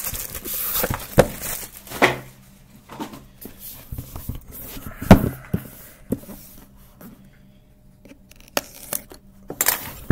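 Handling noise from opening a cardboard trading-card box: rustling and scraping in the first two seconds, then scattered taps and knocks as the box and its contents are moved, the sharpest about five seconds in.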